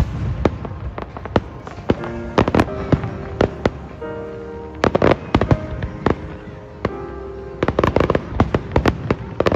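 Fireworks going off in rapid volleys of sharp bangs and crackles, with music playing underneath.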